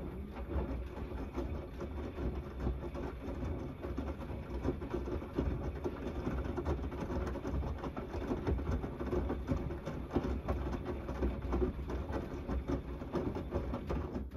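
Gorenje WNEI front-loading washing machine tumbling its drum in the main wash of a 90 °C cotton cycle: the motor runs steadily while wet laundry and sudsy water slosh and fall inside the drum, then the drum stops at the end.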